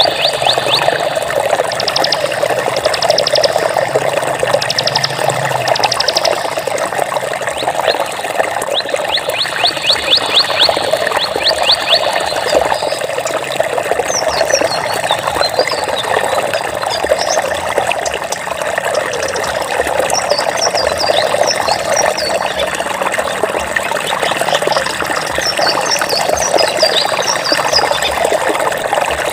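Steady rush of running water. Over it, high rapid trills repeat for about a second at a time during the first half, then short high chirps come scattered through the second half.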